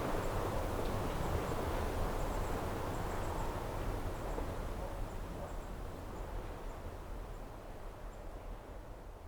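Lakeside outdoor ambience: a steady rushing wash of wind and water noise that slowly fades away, with faint high ticks scattered throughout.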